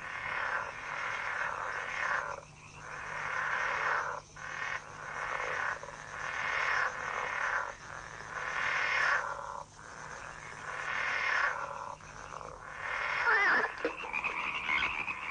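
A chorus of frogs croaking from a pond, many calls overlapping in waves a second or two long with short lulls between them.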